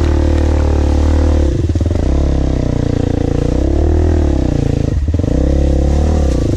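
Motorbike engine revved hard and held high, dipping and rising again several times as the throttle is worked. The bike is stuck in mud, its tyres spinning.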